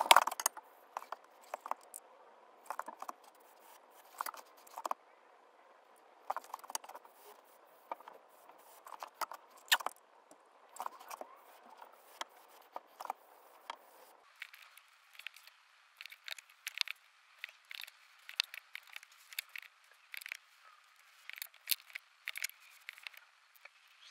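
Scattered short clicks, taps and light scrapes from hand work on a painted wooden platter: a spray can and its straw nozzle handled and the surface dabbed, several small sounds a second, a little louder at the very start.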